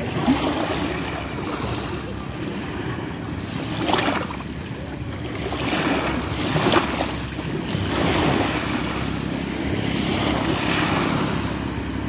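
Small waves breaking and washing up a sandy, pebble-strewn shore, the surf swelling every couple of seconds, with wind on the microphone.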